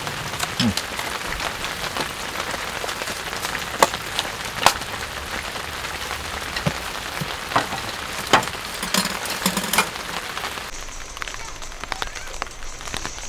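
Heavy rain falling steadily, a dense hiss dotted with sharp drop ticks and a few louder individual drops. About three-quarters of the way through, the upper hiss of the rain suddenly thins.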